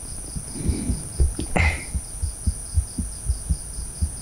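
Crickets chirping in a steady pulsing trill, over a string of soft low thumps, about three a second.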